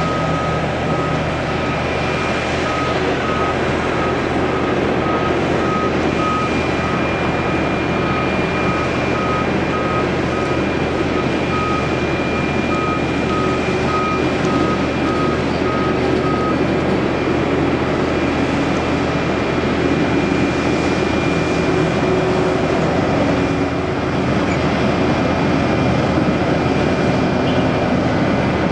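Steady jet-engine roar of a four-engine Boeing 747-400D landing and rolling out on the runway. Through roughly the first half, a beep sounds about once a second, like a vehicle's reversing alarm.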